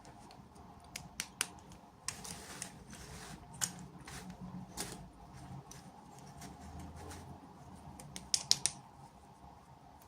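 Hands handling and opening small plastic toy packaging: scattered light clicks and taps with a short rustle, then three sharp clicks in quick succession near the end.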